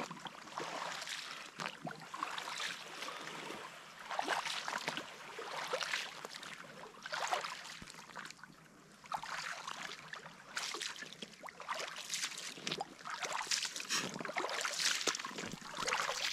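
Footsteps wading through shallow water: a splash and slosh with each stride, coming every second or two at an uneven pace.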